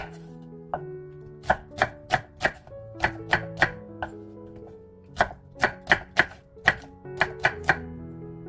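Kitchen knife slicing through an onion and striking a wooden cutting board: about a dozen and a half sharp knocks in quick runs of three or four, over soft background music.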